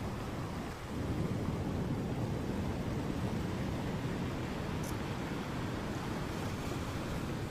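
Steady low rumble of ocean surf on the beach, mixed with wind buffeting the microphone, getting a little louder about a second in.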